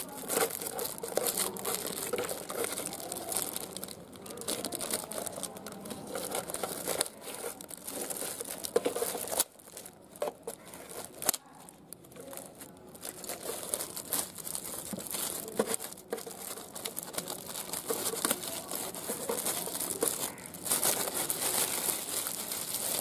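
Thin clear plastic wrapping being crinkled and pulled off by hand, in irregular crackles and rustles, quieter for a few seconds about ten seconds in and louder again near the end.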